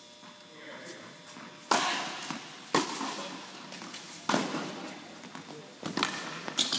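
Tennis ball struck by rackets and bouncing on a hard court during a rally, a string of sharp pops about a second apart, the loudest about a second and a half in. Each pop rings on in the echo of the indoor tennis hall.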